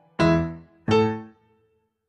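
Background piano music: two chords struck a little under a second apart, each ringing out and fading, then a short pause.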